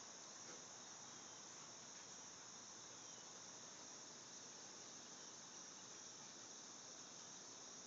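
Faint, steady high-pitched insect chorus, running without a break.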